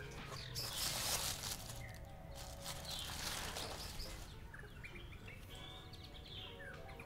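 Tissue paper rustling and crinkling in two bursts as it is pushed aside in a cardboard shoebox. Small birds chirp in the background, more clearly in the second half.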